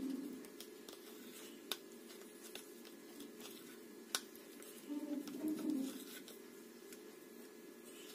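Small utensil stirring and scraping thick bleach cream in a plastic bowl, faint soft scraping with two sharp taps against the bowl, one about a second and a half in and one about four seconds in.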